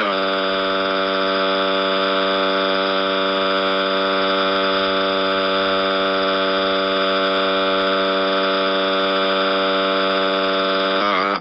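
GoAnimate cartoon crying sound effect slowed by time-stretching, so the cry becomes one long, steady, buzzy held tone. Its pitch drops slightly at the start and wavers just before it cuts off suddenly near the end.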